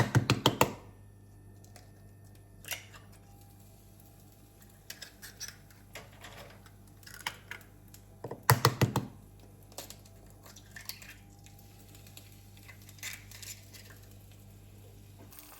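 Kitchen utensil sounds while eggs are being prepared: two short bursts of rapid clicking taps, one at the start and one about eight seconds in, with scattered light clinks between them. A steady low hum runs underneath.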